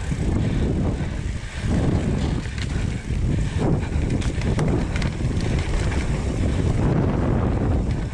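Wind buffeting the action camera's microphone and knobby mountain bike tyres rolling over a dirt trail during a fast downhill descent, with a few clicks and rattles from the bike.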